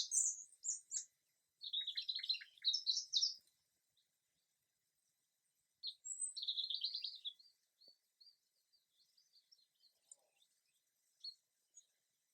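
Small songbirds singing: quick high chirps, then two rapid trilled phrases a few seconds apart, followed by faint high twittering in the background.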